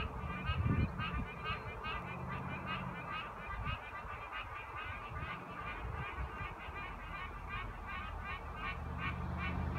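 A chorus of frogs calling from the bog: a steady, even series of short calls, about three a second, over a low rumble.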